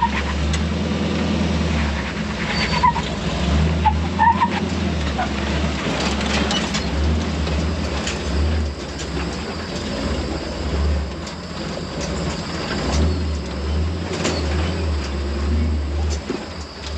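Chevy off-road truck's engine running slowly in low gear as it crawls down a rocky trail, with scattered knocks and a few short squeaks from the rig over the rocks.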